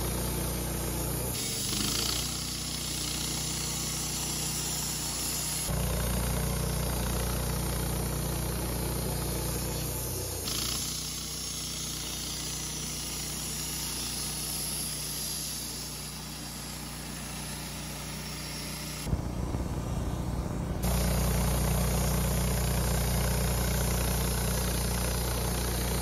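Wood-Mizer LT15 bandsaw mill running as its blade saws through a cedar cant, a steady motor hum with the hiss of the cut. The sound shifts abruptly in level and tone several times. About three quarters of the way through there is a brief quieter stretch with a sharp knock, then the louder running resumes.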